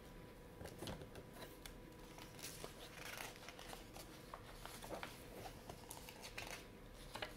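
Faint rustling and soft clicks of a hardcover book's paper pages being turned and pressed flat by hand, with a longer rustle of a page turning a few seconds in.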